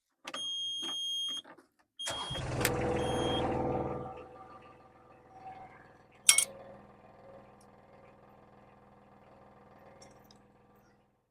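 Mini excavator's warning beeper sounds for about a second. The engine then cranks and starts with a second beep, runs loudly for a couple of seconds and settles to a quieter steady idle. A sharp click comes about six seconds in.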